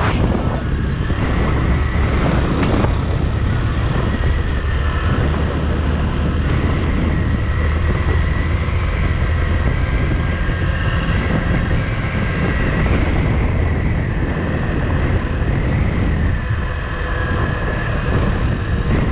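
Suzuki GZ150-A motorcycle's single-cylinder engine running steadily while the bike cruises along, a loud, even rumble with road and air noise over it.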